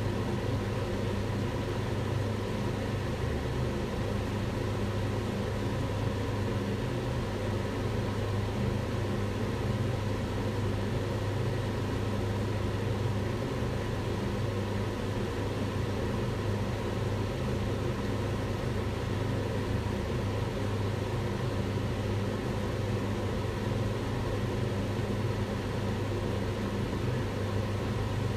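Kitchen range hood extractor fan running steadily: an even rush of air over a low hum.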